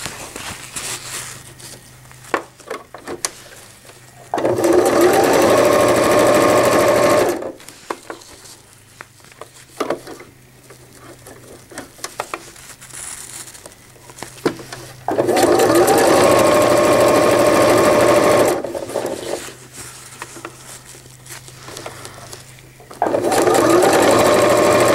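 Computerized home sewing machine stitching a zipper onto PUL fabric with a zipper foot. It runs in three steady bursts of about three to four seconds each, with quieter pauses and scattered clicks between them while the fabric is readjusted.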